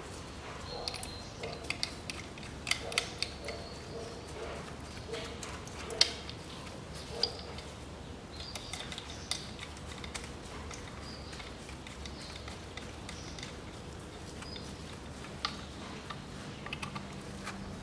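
Scattered light clicks and small knocks of plastic and metal as the ignition coil pack is handled and seated back over the spark plugs on the engine's valve cover.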